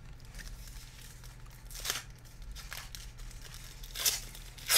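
Foil trading-card pack wrapper crinkling and being torn open by hand, in three short bursts, the loudest near the end.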